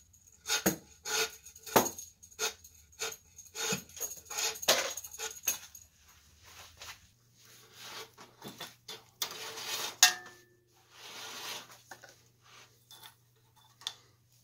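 Handling noises of lamp cord being fished out through the lamp's 1/8-inch iron pipe: a string of light clicks and taps with rustling, and two short rubbing sounds about nine and eleven seconds in.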